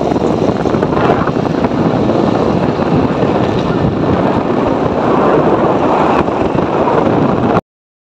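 Wind buffeting the microphone on a moving motor scooter: a loud, steady rush that cuts off suddenly near the end.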